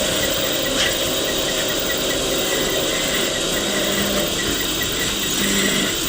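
Wood lathe running steadily, with a light regular ticking from the turning and a single click about a second in.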